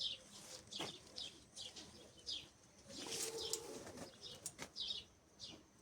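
Small birds chirping, each chirp short and falling in pitch, repeated several times a second. About three seconds in, a dove gives a low coo.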